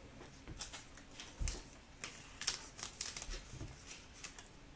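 Trading cards being handled and flipped through, with light, irregular papery clicks and rustles and a couple of soft thumps.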